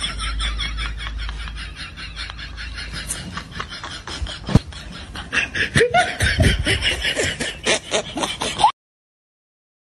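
A person laughing hard, a quick run of chuckles several a second with a few short cries mixed in, cutting off suddenly near the end.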